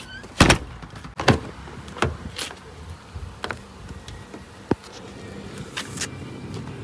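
A run of irregular sharp knocks and clicks, the loudest about half a second and a second and a quarter in, over a steady low rumble.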